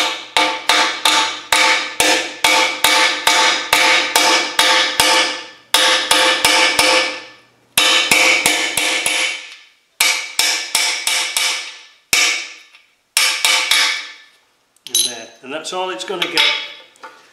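Ball-peen hammer striking a large steel nut used as a drift to drive a steel core (frost) plug into a 4-cylinder Rover engine block. The blows are sharp and ring like metal, about three a second, in runs with short pauses between, giving way to lighter knocks near the end.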